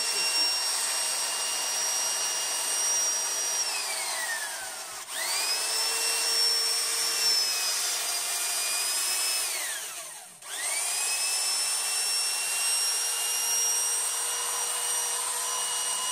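An electric power tool's motor running with a high whine over a rushing hiss. It winds down about four seconds in and starts up again a second later, then winds down and restarts about ten seconds in.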